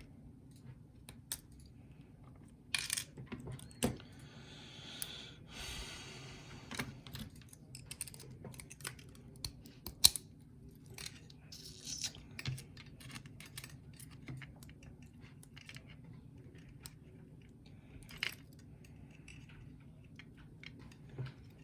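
Small metal clicks, taps and rattles of a Corbin lock cylinder being taken apart by hand, with a stretch of rustling about four seconds in and one loud sharp click about ten seconds in.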